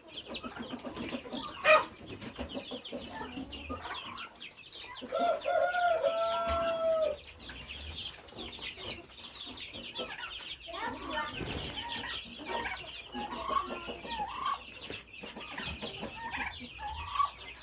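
Chicks peeping continuously in a dense chorus of high chirps, with a louder, drawn-out chicken call lasting about two seconds, about five seconds in. A single sharp knock comes near the start.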